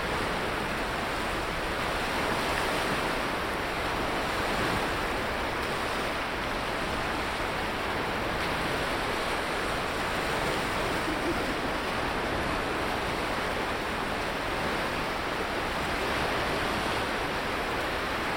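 Sea surf washing onto a sandy beach: a steady rush of waves with no distinct single breakers.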